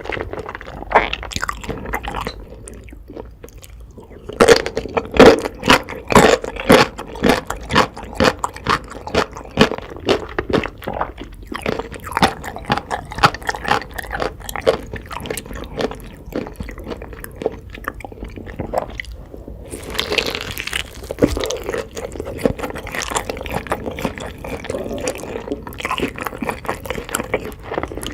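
Close-miked eating sounds: crunchy bites and chewing, with irregular crackles and wet squelches, quieter for a second or two near the start.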